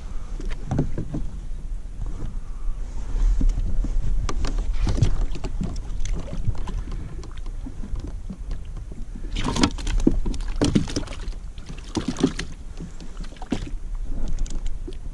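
Knocks, clicks and rustling from handling a rod and reel aboard a plastic pedal-drive fishing kayak, over a steady low rumble of wind on the microphone. The sharpest knocks come several times between about nine and thirteen seconds in.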